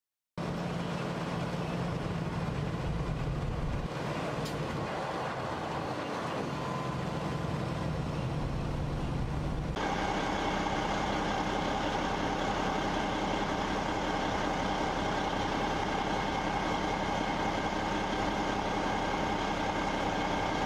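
Heavy trucks idling steadily. About ten seconds in, the sound cuts abruptly to a different steady engine sound with a high whine over it.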